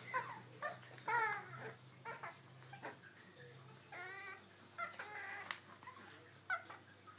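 Newborn beagle puppies squeaking and whimpering while they nurse: a string of about eight short, high calls, some wavering up and down in pitch.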